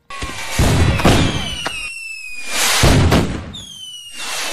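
Fireworks-like sound effect: a series of loud booming bursts, about four in all, with thin whistling tones gliding slowly downward between them.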